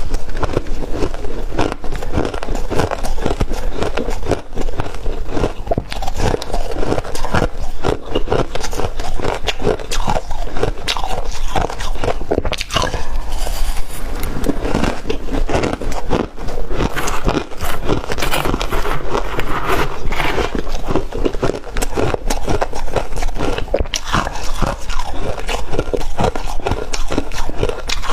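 Freezer frost being bitten and chewed close to the microphone: a dense, continuous crackling crunch of packed ice crystals.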